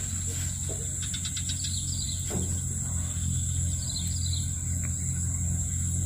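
Birds chirping in short calls, with a quick trill about a second in and another call about four seconds in, over a steady high-pitched insect drone. A steady low hum runs underneath.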